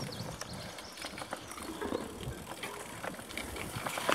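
Mountain bike rolling along a rough dirt singletrack, with irregular small clicks and rattles from the bike over the bumps and a steady low noise from the tyres on the dirt.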